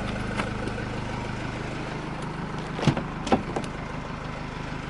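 Mercedes E220d's four-cylinder diesel engine idling steadily, with a few sharp clicks around the middle.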